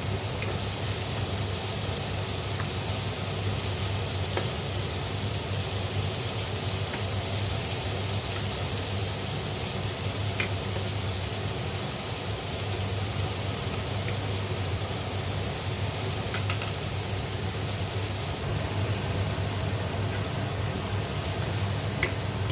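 Tiger shrimp frying in butter and garlic in a pan, a steady sizzle over a low hum, with a few faint clicks of a utensil.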